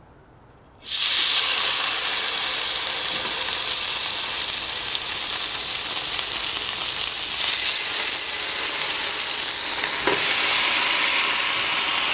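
Marinated chicken breast sizzling on the hot ribbed plate of a combination contact grill/panini press, a loud steady hiss that starts suddenly about a second in as the meat touches the plate and grows a little louder near the end.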